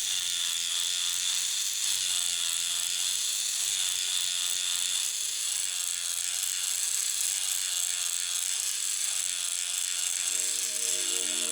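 A small electric motor whirring steadily, with a low hum joining near the end.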